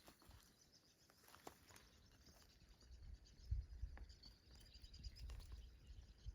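Near silence: faint outdoor ambience with a few soft low thumps, the loudest about three and a half seconds in, and scattered faint ticks.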